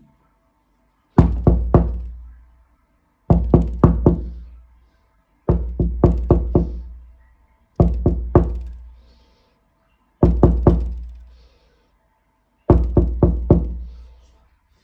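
Knocking on a door: six rounds of four quick raps, one round every two seconds or so, each round ringing out briefly before the next.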